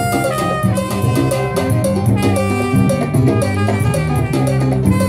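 Live salsa band playing, a trumpet carrying the melody over a drum kit and a steady, driving beat.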